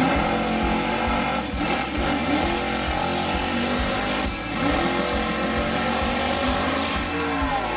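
Vintage gasser drag car's engine revving hard at full throttle as the car launches and lifts its front wheels, its pitch rising and falling.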